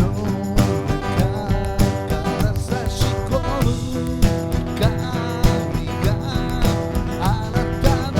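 Background music with a steady beat, in a country style with plucked guitar.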